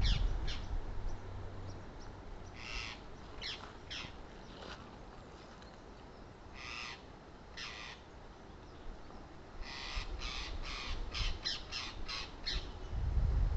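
A parrot giving short, harsh screeching calls: single calls spaced seconds apart, then a quick run of about eight near the end.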